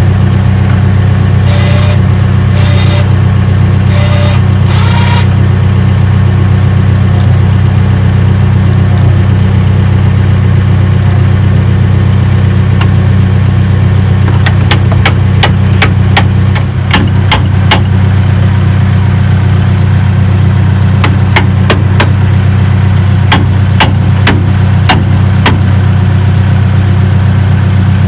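A large engine idling steadily and loudly, with a scatter of sharp clicks or knocks over its second half.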